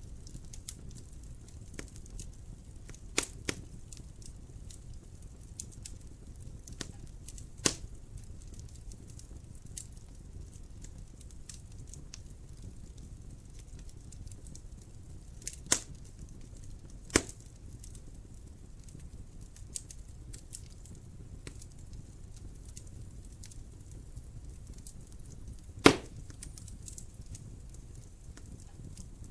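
Wood fire burning in a fireplace: a low steady rumble of flames with scattered crackles and a few sharp pops, the loudest pop near the end.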